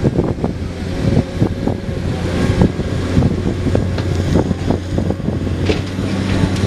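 Komatsu PC210 excavator's diesel engine running steadily, with repeated knocks and clatter scattered through it.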